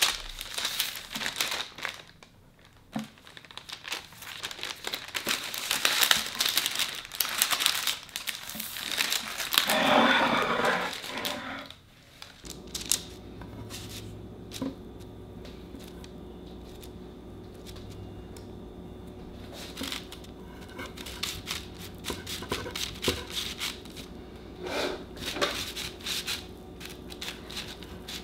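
Baking parchment paper crinkling and rustling as it is pulled and handled under a layered sponge cake. After about twelve seconds this gives way to quieter, scattered scrapes and taps of a knife cutting through the sponge on the paper.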